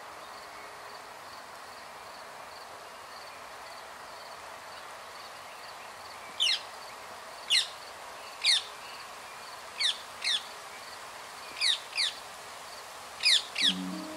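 Rose-ringed parakeet calling in sharp, loud screeches, each a quick steeply falling note. The calls begin about six seconds in, nine in all, some in quick pairs. Underneath, a faint high pip repeats a few times a second over a steady background hum.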